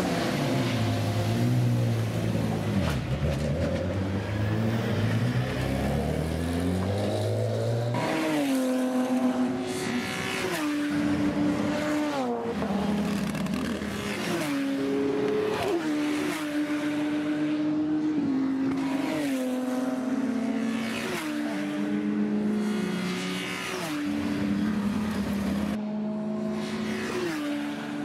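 Ginetta GT Supercup race cars' V6 engines at racing speed. For the first few seconds the engine note sweeps up and down. From about 8 seconds in it climbs repeatedly, with a sudden drop in pitch at each gear change.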